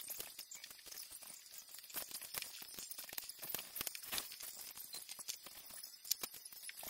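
Small plastic LEGO bricks clicking and clattering against each other and a hard tabletop as loose pieces are picked through and handled: a rapid, irregular series of light clicks.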